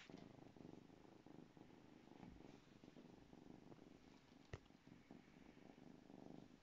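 Two-month-old Savannah kitten purring, faint and steady. One sharp click about four and a half seconds in.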